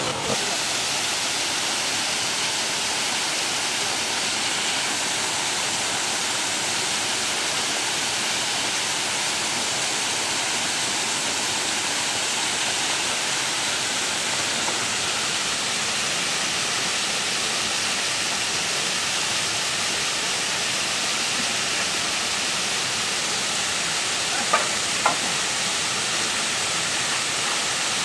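Small forest waterfall pouring into a rocky pool: a steady rushing hiss of falling water. Two brief knocks sound close together near the end.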